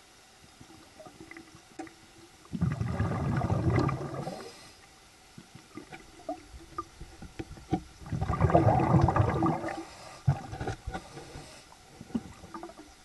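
Exhaled air bubbling out underwater in two bursts, each about two seconds long and about five seconds apart, with small clicks and gurgles of water between them.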